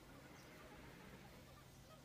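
Near silence: a faint steady low hum with scattered faint chirps.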